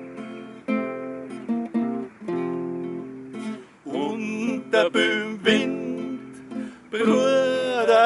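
Two acoustic guitars strumming chords in an instrumental passage of a folk song; about halfway through, male voices come in singing over the guitars.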